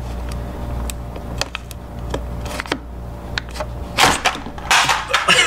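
Clear plastic blister pack of a Canon 40 black ink cartridge being worked open by hand. Small clicks and crinkles come first, then a few loud crackling rips about four seconds in as the seal is yanked.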